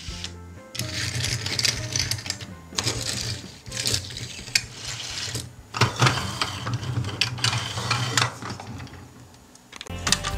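Small toy vehicles pushed and rolled over a hard tabletop, their plastic wheels whirring and clicking in several spells of a second or two.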